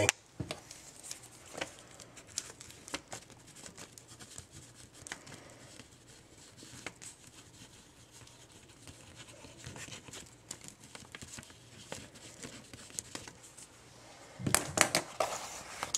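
Pen scratching on paper as words are handwritten on a letter, with faint scattered ticks and light paper handling. A louder rustle of the paper sheet comes in near the end.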